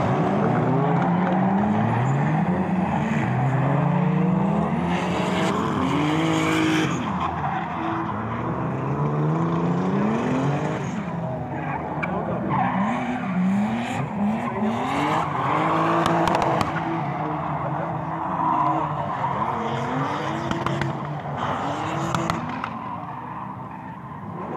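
Drift cars' engines revving hard again and again, pitch sweeping up and dropping back, with tyres skidding and squealing as the cars slide sideways through the corner.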